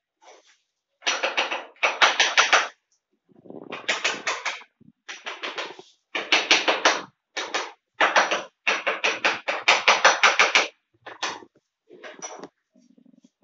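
Rapid rhythmic hand-scrubbing strokes, about six a second, in bursts of one to two seconds with short pauses between.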